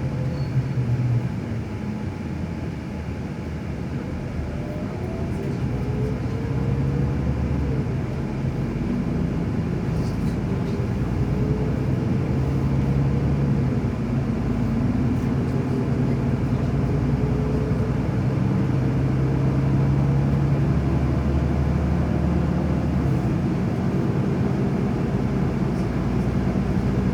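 A vehicle running steadily: a low rumble with a faint engine or motor whine that rises in pitch several times as it gathers speed.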